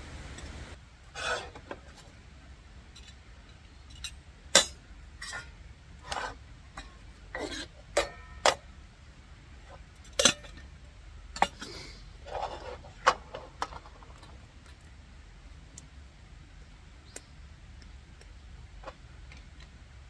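Hard objects being handled: a string of sharp clinks and knocks with a little rustling, two much louder than the rest, thinning out to a few faint ticks after about fourteen seconds.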